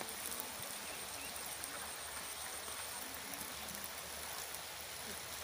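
Steady rush of rainwater running in a sheet over a concrete slope.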